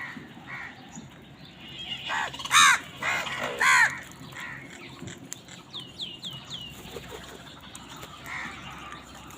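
Crows cawing: two loud, harsh caws about two and a half and three and a half seconds in, among fainter calls. A run of four quick, high, falling notes follows around six seconds in.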